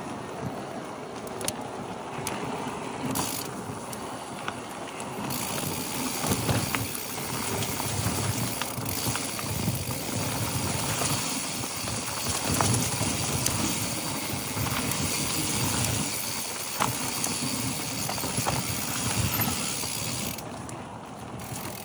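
Mountain bike riding fast down a dry dirt trail: tyres rolling and crunching over dirt and loose stones, with the bike's chain and parts rattling and clicking over the bumps.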